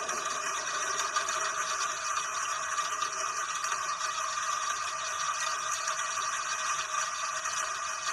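Steady rain, an even hiss with no thunder heard.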